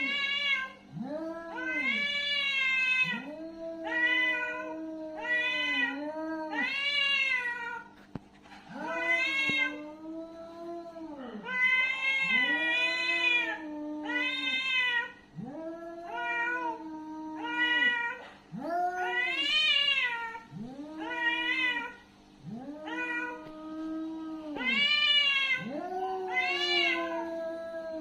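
Angry cat yowling: a string of long, drawn-out calls that rise and fall in pitch, following one another with short breaks, over a faint steady low hum.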